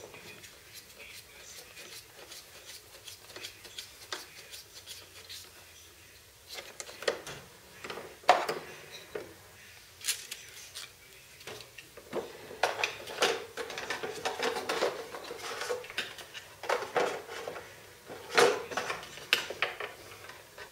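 Clicks, clinks and rubbing of small metal and plastic parts as the retractable landing-gear linkage of a model jet is worked by hand with a small tool. A single sharp knock about eight seconds in is the loudest sound, with denser clattering in the second half.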